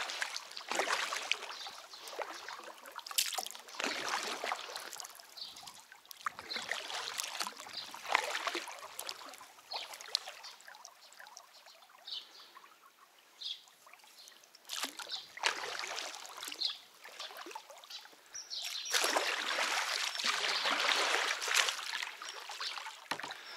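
A small boat being rowed through shallow water: irregular oar strokes splashing, with trickling drips between them and a longer rush of water about three-quarters of the way through.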